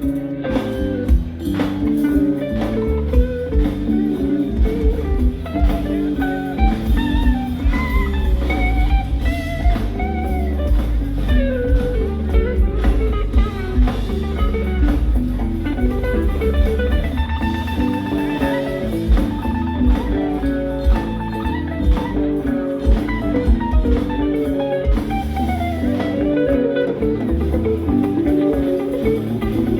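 Rock band playing live: quick electric guitar lines over bass and a drum kit.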